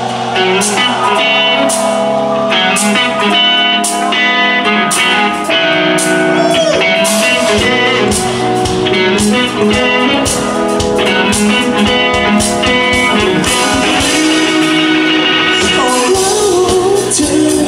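Live band playing pop-rock over a PA: drums, bass and electric guitars, with a male voice singing.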